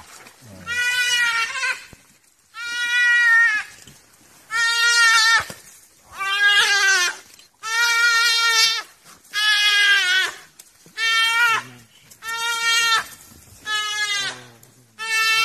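A duiker crying in distress as African wild dogs drag it from the water. The cries are bleats about a second long, repeated roughly every one and a half seconds, about ten in all.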